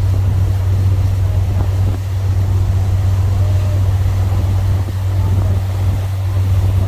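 Boat engine running with a steady low drone, faint voices under it.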